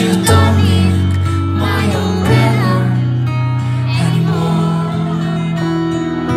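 K-pop song performed live through a concert PA: a male voice sings over a held bass line that steps up in pitch twice, heard from within the audience.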